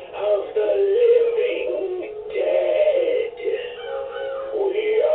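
A Halloween animated ghoul prop's built-in sound effects playing through its small speaker: a wavering, moaning voice over eerie music.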